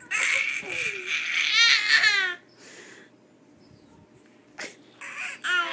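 Toddler twin boys babbling baby talk to each other: a loud stretch of babble with falling pitch in the first two seconds or so, a pause, then a shorter burst of babble near the end.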